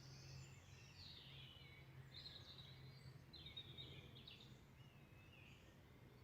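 Songbirds singing faintly, a string of short, high, warbling phrases one after another, over a low steady hum.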